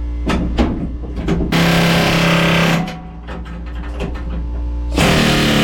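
Pneumatic air hammer with a chisel bit chattering against sheet steel in two bursts of about a second each, cutting through rusted spot welds on a truck cab's floor plate. Short metal knocks come between the bursts.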